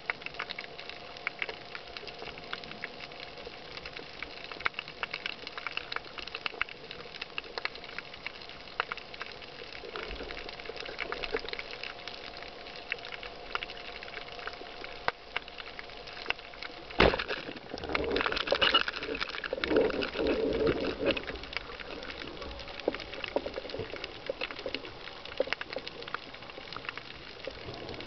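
Steady underwater crackling and ticking, then a little past halfway a single sharp crack as a band-powered speargun fires, followed by a few seconds of louder rushing noise as the fish is hit.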